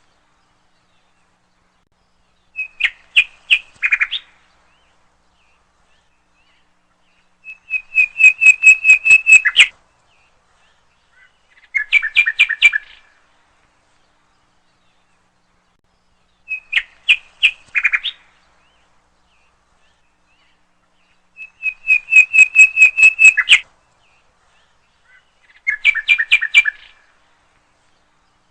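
Common nightingale singing: six short phrases of fast repeated notes, each one to two seconds long, with pauses of a few seconds between them. The same three phrases come round again halfway through, as in a looped recording.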